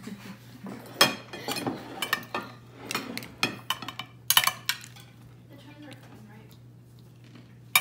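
Plates and cutlery clinking and knocking on a table, with several sharp clinks in the first five seconds, then quieter.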